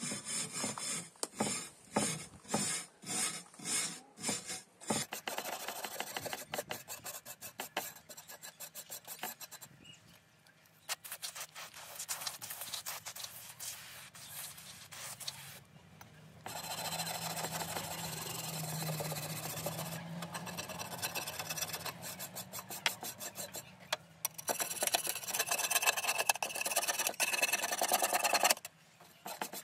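Hand scraper scraping rust and dirt off a flat steel plate. It starts with rhythmic strokes about two a second, then turns to faster, continuous scraping that is loudest near the end.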